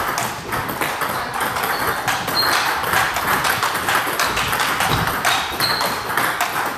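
Table tennis balls clicking off bats and the table in quick succession, several hits a second, during a fast hitting drill.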